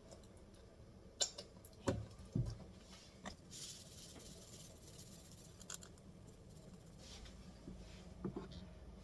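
Kitchen items being handled: a few sharp knocks and clatters in the first few seconds, a short hiss, and two more knocks near the end.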